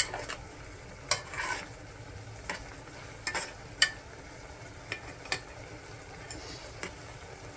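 A utensil stirring in a cooking pot of jjajangmyeon, with several sharp, irregular clinks against the pot.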